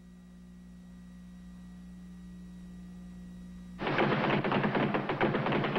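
A steady low hum, then about four seconds in a fast, dense rattle of punches on a speed bag starts abruptly, muffled and hissy like an old film soundtrack.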